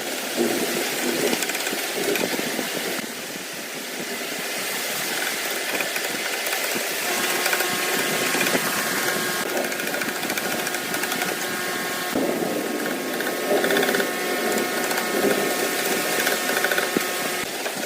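An electric power tool running on wood, its sound changing several times. A steady whine sets in about seven seconds in and stops near the end.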